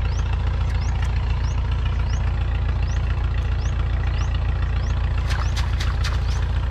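Cast net being hauled up out of a muddy pond, with water splashing and dripping off the mesh about five seconds in, over a steady low engine-like drone. A faint short high chirp repeats about twice a second.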